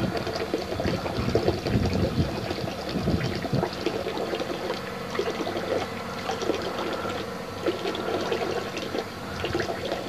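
Farm vehicle engine running steadily, its low hum under a continuous rushing, crackling noise on the microphone.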